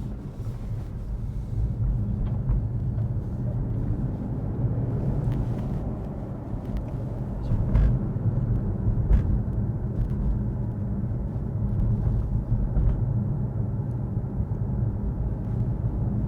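2023 Mercedes-AMG C63 driving along the road: a steady low rumble of tyres and drivetrain, with a few faint clicks partway through.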